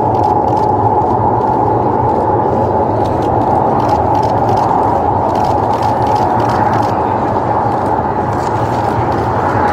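A steady, unchanging droning rumble with a low hum and a rushing noise, and faint scattered clicks over it.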